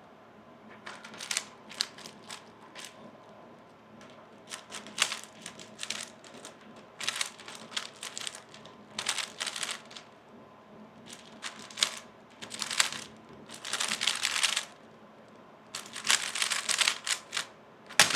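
A 3x3 speedcube being turned fast during a timed solve: rapid plastic clicking and clacking in bursts, with short pauses between the bursts.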